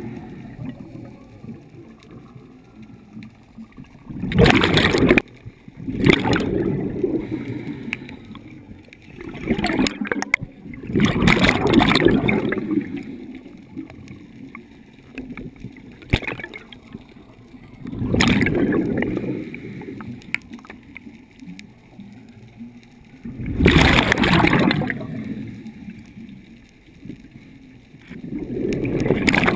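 Scuba diver breathing through a regulator underwater, heard from a camera close to the diver: about five breaths, each a short hiss as air is drawn through the regulator, then a longer burst of exhaled bubbles.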